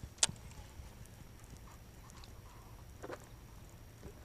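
A sharp click from a baitcasting reel as its thumb bar is pressed for a cast, then a few faint ticks and a softer rustle about three seconds in, over a low steady hum.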